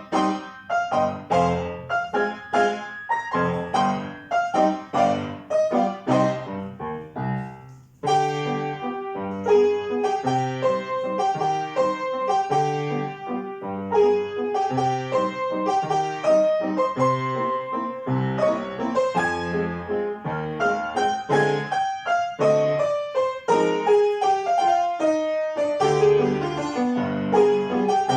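Piano duet playing a waltz: bass notes and chords under a melody, easing to a brief pause about eight seconds in before the next phrase enters.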